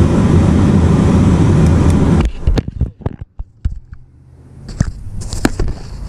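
The 1997 Ford F-150's HVAC blower fan running on high heat, a loud steady rush that cuts off suddenly about two seconds in. After that come clicks and knocks of handling, and a low hum returns near the end.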